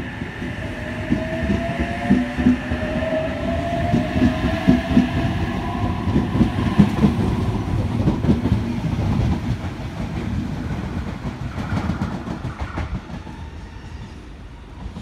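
NSW TrainLink H-set (Oscar) electric multiple unit pulling out and accelerating: its traction motors whine, rising in pitch over the first few seconds. The wheels click over the rail joints as the carriages pass, and the sound fades near the end as the last car clears.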